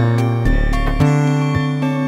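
Electronic music from a Eurorack modular synthesizer: a synth bass line under pitched-percussion notes and polyphonic piano-like chords. New notes strike about twice a second in a steady pulse.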